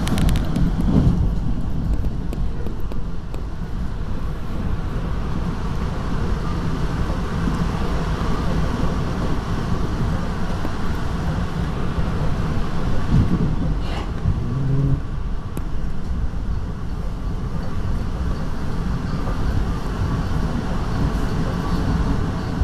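Steady rumble and rattle of an NJ Transit Comet IV passenger coach running at speed on the rails, heard from inside the car. There is one short knock about two-thirds of the way through.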